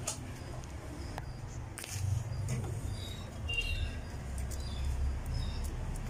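A few sharp clicks and rattles as the plastic plug-in relay and overload protector (OLP) are worked off the terminals of a refrigerator compressor that will not start. Short high chirps come through faintly in the background.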